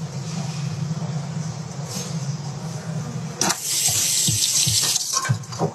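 Tap water running into a stainless steel sink. About three and a half seconds in, the splash gets louder and brighter for a second or two as a cucumber is held under the stream, with a few light knocks after it.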